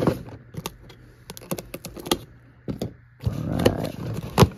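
A cardboard shipping case being handled and opened: a run of light clicks and taps, then about three seconds in a scraping, tearing rustle of cardboard, ending in a sharp click.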